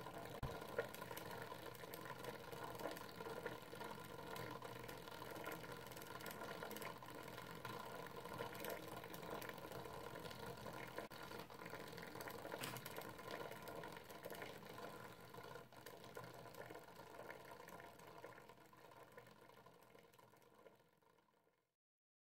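Homopolar motor running: a wire coil spinning around a battery standing on a neodymium magnet, giving a faint, steady rattle and scrape as the wire rubs on its contacts. The sound fades out near the end.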